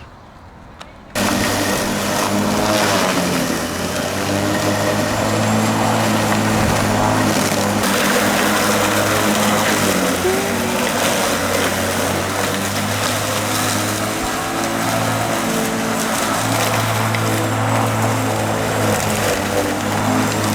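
Greenworks 14-inch, 9-amp corded electric lawn mower running, its motor and blade giving a steady hum and whir as it cuts tall grass. The sound starts abruptly about a second in.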